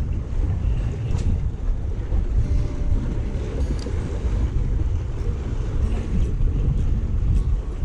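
Wind buffeting the microphone as a steady low rumble, over the wash of choppy sea waves against a concrete tetrapod breakwater, with a few faint ticks.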